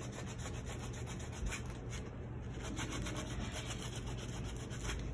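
Sandpaper rubbed by hand over denim jeans in quick scratchy back-and-forth strokes, which grow sparser after about two seconds. The rubbing abrades the surface of the denim to give it a worn, distressed look.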